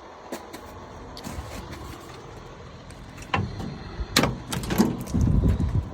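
A few sharp knocks and clunks, the loudest about four seconds in, then a low rumble near the end: someone handling parts of an old truck cab.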